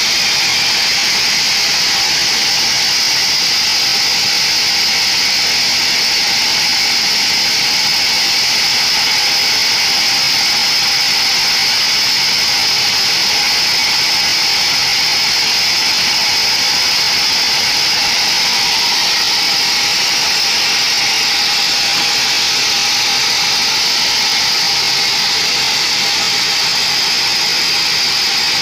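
Sawmill band saw ripping a mahogany timber lengthwise: a steady, high-pitched whine that holds unbroken through the cut.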